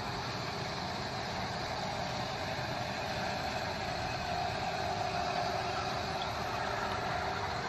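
Flood-drainage pumping units running together in a steady, even engine drone, with the rush of water forced through their discharge hoses.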